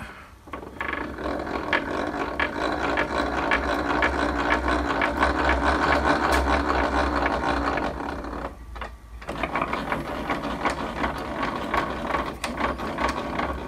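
Drill press knee being wound by hand up its linear rails: a steady run of fast rattling clicks from the winding mechanism. It stops briefly about two-thirds through, then carries on.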